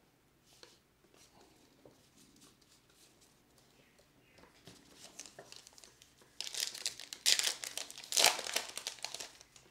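Topps Gypsy Queen trading card pack wrapper crinkling and tearing open. Faint rustling at first, then loud crinkling bursts in the last three seconds.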